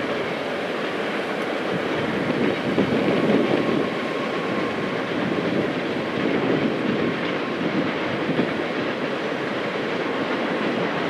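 Freight cars of a long train rolling over a steel trestle bridge, a steady noise of wheels on rail, with a faint high ringing tone for a few seconds midway.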